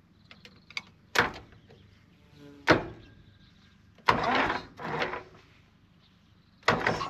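Hand work on a Valmet 500 tractor engine: two sharp metallic knocks, then two short rushing bursts, each under a second long, near the middle and near the end.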